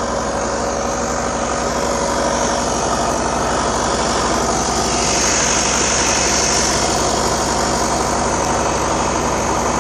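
An engine running steadily, with no change in speed.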